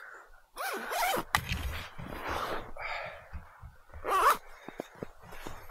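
Sleeping-bag zipper pulled in several short runs, amid the rustle of the bag's nylon fabric as someone gets into it. The loudest pull comes about four seconds in.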